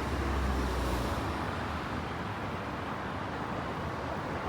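City street ambience: steady traffic noise, with a low rumble in about the first second.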